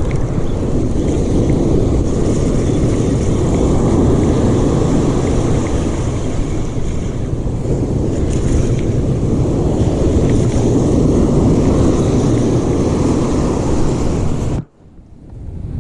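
Strong wind buffeting the microphone over the steady wash of ocean surf on a beach. The noise is loud and even throughout, then cuts out abruptly near the end.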